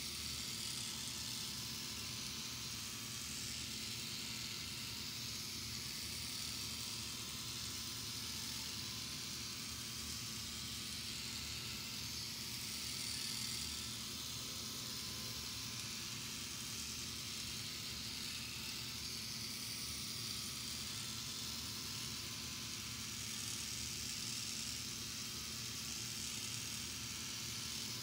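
Hand-cranked K'nex model carnival ride turning, a faint steady whir and hiss of its plastic gears and parts with slow swells in the hiss.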